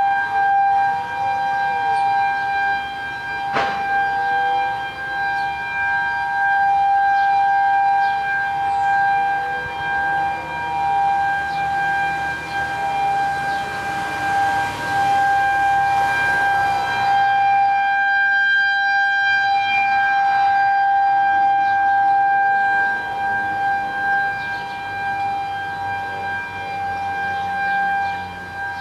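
Federal Signal 2001-130 SRNB outdoor warning siren sounding a steady Alert tone at full speed, swelling and fading as its horn rotates. Fainter sirens glide up and down in pitch beneath it.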